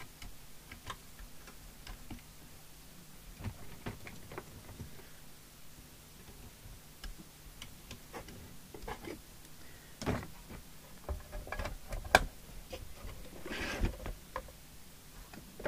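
Scattered small clicks and knocks as a CB radio's metal screen cover is handled and fitted on the workbench, with a sharper click about twelve seconds in and a brief scraping rustle just after. A faint steady hum runs underneath.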